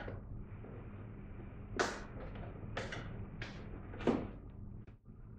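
Flat screwdriver prying at the plastic holding clips of a 2007 Honda Accord's inner fender liner: several short, sharp plastic clicks and scrapes, the loudest about two and four seconds in, over a steady low hum.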